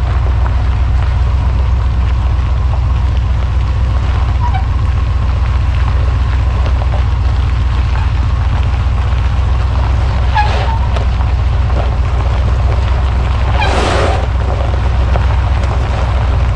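Pickup truck engine idling, a steady low rumble, with two short higher-pitched sounds about ten and fourteen seconds in.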